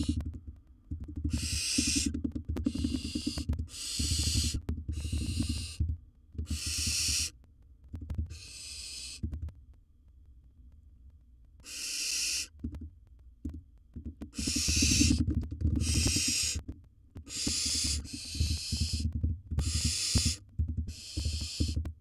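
Barn owl giving a long series of rasping hissing 'snore' calls, each under a second and about one a second, with a pause of a couple of seconds midway. Low knocking and rumbling runs underneath.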